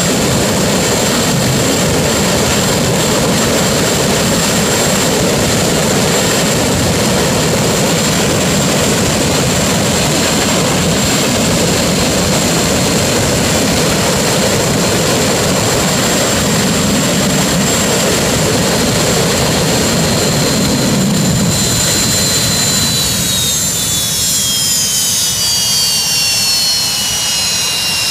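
Green Mamba jet car's jet engine running at full power with its afterburner lit: a loud, steady rush of noise with a high turbine whine over it. About 22 seconds in, the whine glides down in pitch as the engine spools down.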